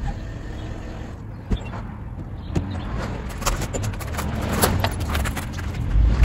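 Footsteps crunching on loose gravel, irregular, starting about halfway through and getting louder near the end, over a steady low rumble.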